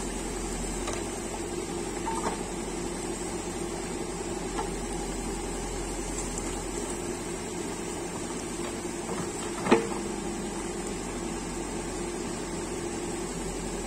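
Backhoe loader's diesel engine running steadily, with a single sharp knock about ten seconds in.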